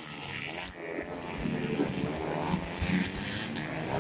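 125cc four-stroke underbone racing motorcycles passing through a corner, their engines revving as they go by.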